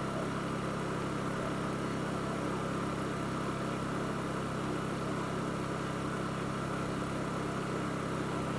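Honda EB2200i inverter generator's single-cylinder four-stroke engine running steadily and nice and quiet at a low, even speed, now on fresh gas with the water flushed out of its fuel lines.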